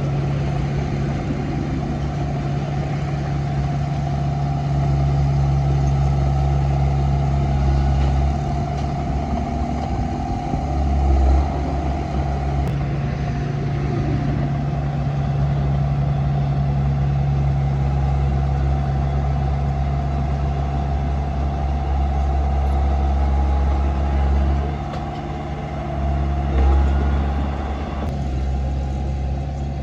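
Komatsu D31P bulldozer's diesel engine running steadily while working, with a low drone that swells briefly a few times, most clearly about eleven seconds in and again near the end.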